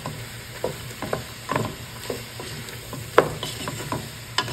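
Wooden spatula stirring oxtail and vegetables in a nonstick pot, with irregular scrapes and knocks against the pot, the sharpest about three seconds in. A light sizzle from the pot underneath.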